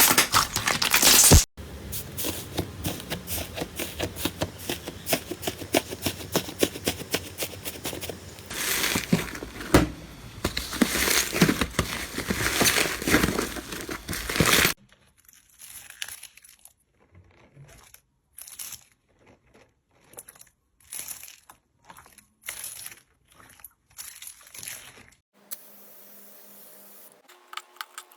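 Slime being squeezed and stretched by hand, making dense crackling, crinkling sounds for the first half, then a string of separate short squishes about one a second.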